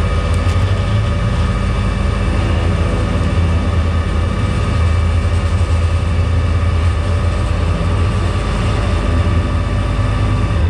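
Vehicle engine idling steadily: a deep, even hum with no revving.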